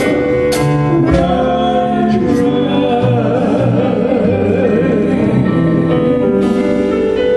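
Worship song: a singer holds long notes with a wavering vibrato over a sustained band accompaniment, with a few sharp percussive hits in the first second or so.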